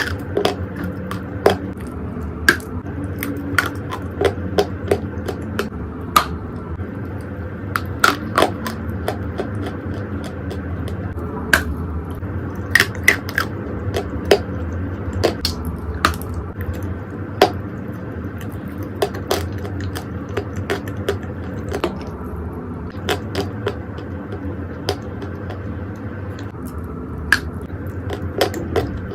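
Chunks of dry Turkestan edible clay being bitten and crunched: irregular sharp cracks, a few to several every couple of seconds, over a steady low background noise.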